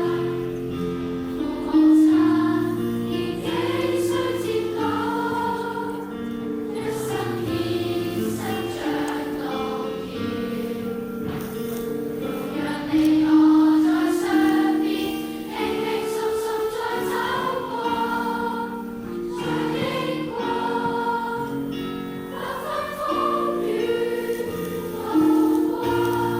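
A choir singing a Chinese hymn in parts, voices holding long sustained notes, recorded live with the venue's room sound.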